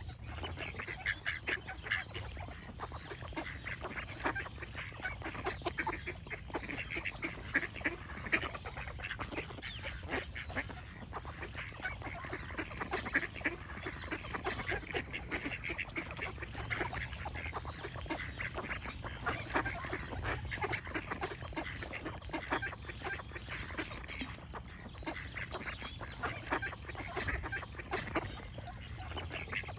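A flock of ducks quacking continuously, many calls overlapping.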